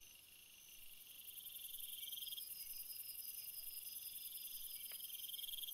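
Faint chirping of insects in several steady high trills at different pitches, fading in over the first couple of seconds.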